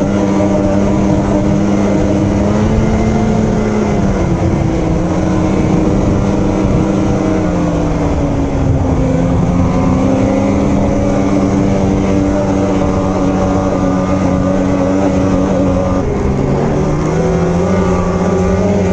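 Two-stroke snowmobile engine running under way at a fairly steady throttle. Its pitch drops and picks up again a few times as the throttle is eased and reapplied.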